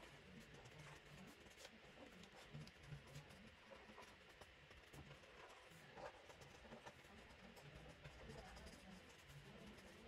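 Faint scratching of a Chartpak grey marker's felt tip stroked back and forth over paper, with small irregular ticks as the tip drags and lifts.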